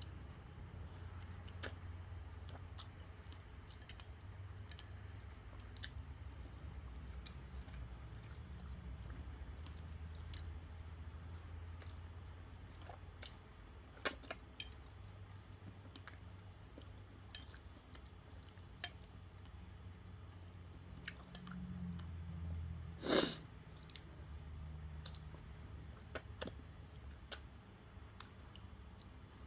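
Close-miked eating of ramen noodles: soft chewing and slurping over a steady low hum, with scattered small clicks and one louder short noise about two-thirds of the way through.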